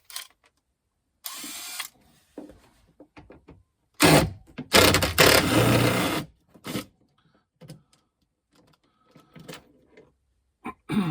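Power screwdriver with a T25 Torx bit running in short bursts as it backs out trim screws, with small clicks and knocks of trim between. The longest and loudest run comes about four to six seconds in.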